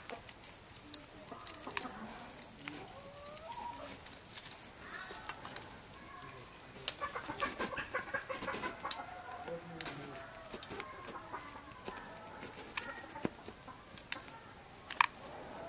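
Chickens clucking off and on, with scattered sharp clicks and a steady high-pitched whine.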